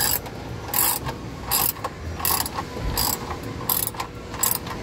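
Socket ratchet wrench with an 11 mm socket clicking in short runs on each back-swing, about seven times at a steady pace of roughly one every three-quarters of a second, as it runs valve-cover bolts down hand-snug.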